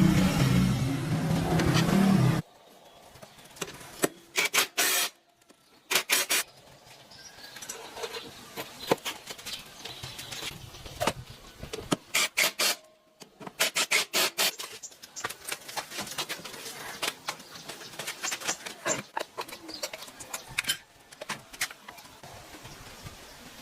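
A motorcycle engine running, which cuts off abruptly about two seconds in. After it come scattered metallic clicks, clinks and short rapid runs of ticking, like hand tools on metal parts.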